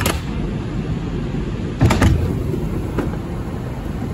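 Subway train slowing to a stop at a station platform, heard from inside the car: a steady low rumble with a few sharp clunks, loudest about two seconds in.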